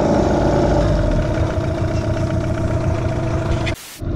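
Outboard boat motor idling steadily after a frosty night, left running while its frozen cooling-water pump thaws. The sound breaks off briefly near the end.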